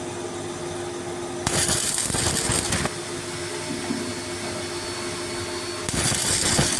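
A workshop machine's electric motor running with a steady hum, and two louder stretches of rough, noisy working sound, one about a second and a half in and one near the end.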